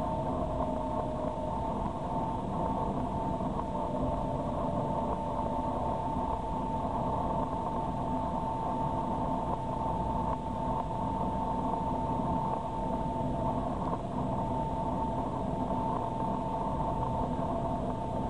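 Jet airliner cabin noise on the ground after landing: a steady rush with the engines' steady, even whine on top.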